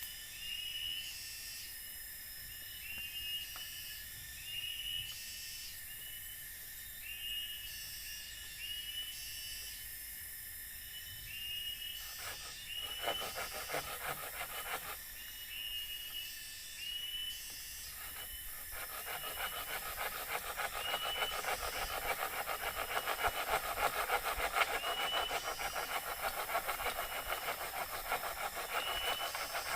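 A tool rasping against wood by hand: a few short strokes about twelve seconds in, then continuous fast rasping from about nineteen seconds that is the loudest sound. Under it, a short high chirp repeats about once a second in the forest background.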